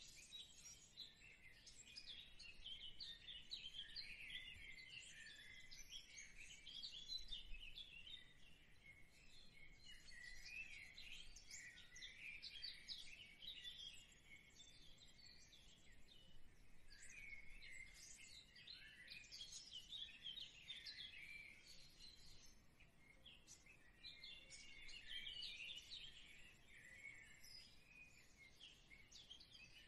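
Faint birds chirping: many short calls overlapping, coming in waves with brief lulls.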